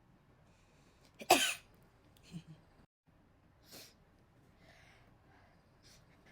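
A person sneezing: one sharp, loud sneeze about a second in, followed by a few softer short sounds.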